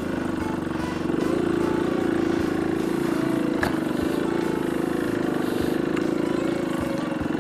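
Yamaha RX Special's two-stroke single-cylinder engine running at low, steady revs on light throttle while the trail bike rides a dirt track. One short knock about halfway through.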